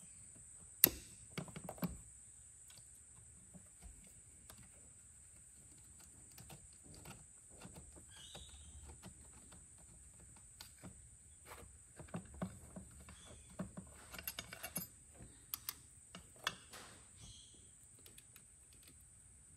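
Clicks and light taps of the plastic case of a JB4 piggyback ECU being handled and opened by hand. One sharp click comes about a second in, then scattered small clicks, with a busier run of them in the second half. A faint steady high whine sits behind.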